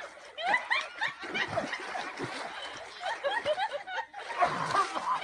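Someone laughing in runs of short, high-pitched giggles, several a second, with a brief pause near the end.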